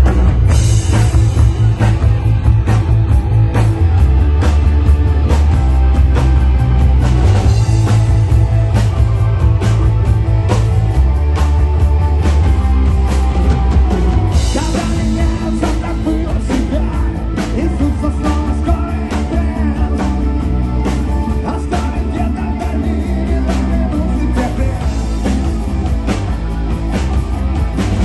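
A live rock band plays an instrumental passage: electric guitar, bass and drum kit on a steady beat.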